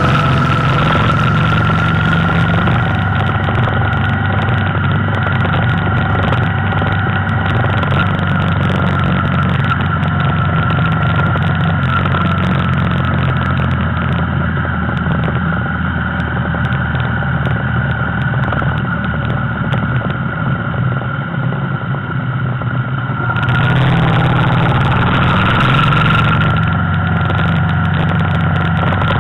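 Motorcycle engine running steadily while riding along at a constant pace, with a steady rushing hiss over it. It gets louder and brighter for about three seconds near the end, then settles back.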